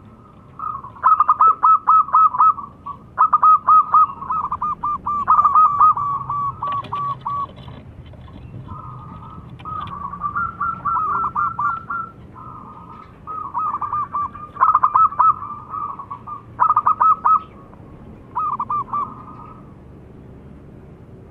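Zebra dove (perkutut) singing: repeated phrases of rapid, staccato cooing notes, each phrase a second or two long with short pauses between.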